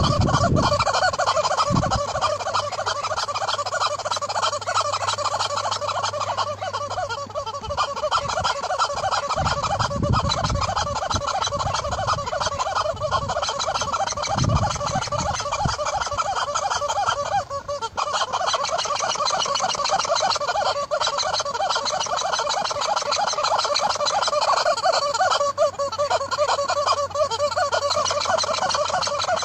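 Yellow rubber chicken squeak toy squawking over and over as a horse chomps and squeezes it in its mouth: a fast, nearly unbroken run of honking squeaks, with a brief break about 17 seconds in.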